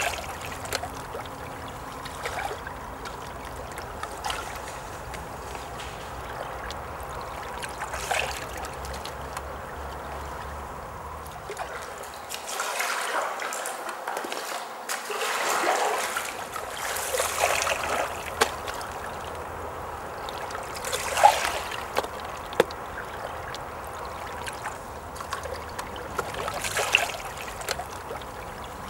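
Running water trickling and lapping steadily, with several louder watery surges now and then.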